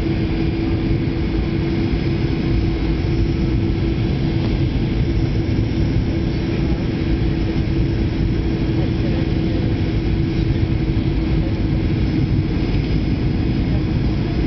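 Steady cabin roar of a Ryanair Boeing 737-800 on final approach: engine and airflow noise heard from inside the cabin, with a steady low hum running through it.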